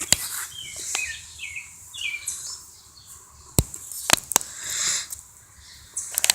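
A few sharp, separate clicks and knocks of hand tools working on a tractor engine, with short bird chirps in the background in the first half.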